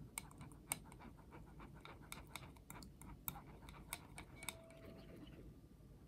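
Silicone spatula scraping and pressing custard through a fine-mesh metal strainer: a quick run of faint, irregular clicks and scrapes that thins out near the end.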